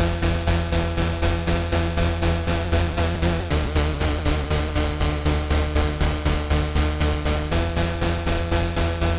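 Arturia Mini V3 software synthesizer (a Minimoog emulation) playing a sequenced patch: rhythmic noise pulses about three times a second over a sustained bass chord that shifts pitch about three and a half seconds in and again about four seconds later.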